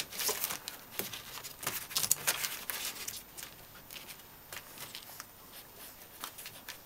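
Bedlington whippet puppies squirming and nursing against their mother: a run of quick clicks and scratchy rustles, busiest in the first three seconds, then fainter.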